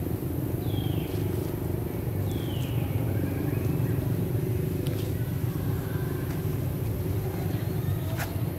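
Steady low rumble, with two short high chirps falling in pitch in the first three seconds and a sharp click near the end.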